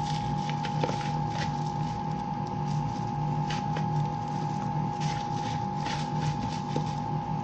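A steady machine hum with a constant whining tone runs throughout. Over it come soft, irregular patting and squishing noises as a plastic-gloved hand tosses fried chicken pieces in seasoning in a plastic bowl and drops them into a cardboard box.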